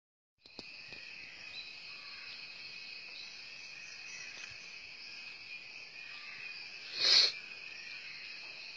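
Insects chirring steadily in several high, even tones. A short, louder high-pitched sound cuts in once, about seven seconds in.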